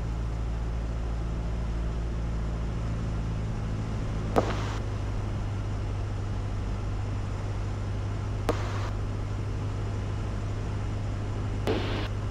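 Steady low drone of a 180-horsepower Cessna 172's engine and propeller on final approach, heard through the cockpit headset and intercom feed. Three brief radio clicks, each with a short burst of hiss, come about four seconds apart.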